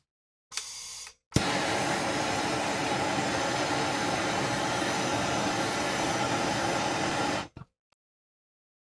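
Ace trigger-start hand torch: a short hiss of gas, a sharp pop as it lights about a second and a half in, then a steady loud flame hiss for about six seconds that cuts off abruptly near the end.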